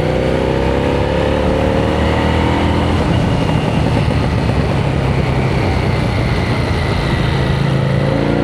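Street rod's engine running, picked up by a DJI Mic 3 wireless clip-on mic; its pitch eases down over the first few seconds and climbs again near the end.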